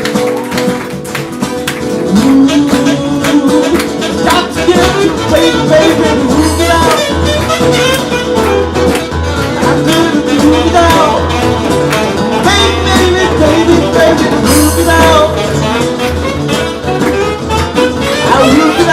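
A live band playing, with guitar leading over bass and drums.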